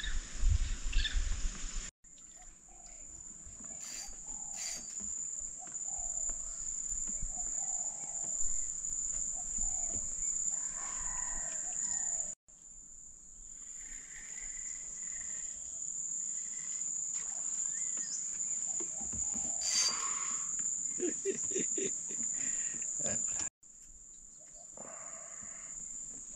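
Insects buzzing in a steady high-pitched drone from the riverbank vegetation, with a few faint clicks. The drone cuts off abruptly three times and swells back in.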